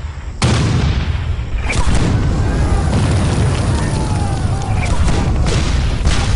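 Civil War muzzle-loading field cannons firing: a heavy boom about half a second in, sharper reports near two seconds in and again near the end, with a continuous low rumble of gunfire between.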